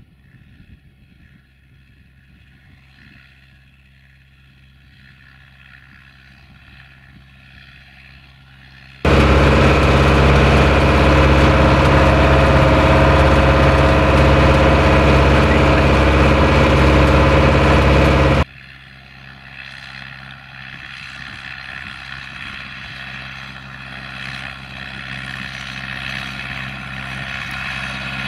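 International 844S tractor's four-cylinder diesel engine running under load while pulling a harrow, growing louder as the tractor approaches. About a third of the way in, the sound turns much louder and fuller for about nine seconds, heard from inside the tractor's cab, then cuts back to the quieter approaching engine.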